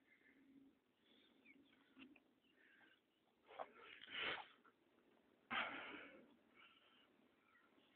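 Large dogs breathing hard and snuffling in a few short noisy bursts, the loudest in the middle, with faint quiet stretches around them.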